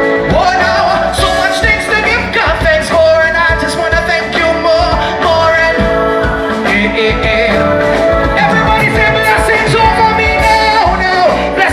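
Live gospel band playing with singing voices.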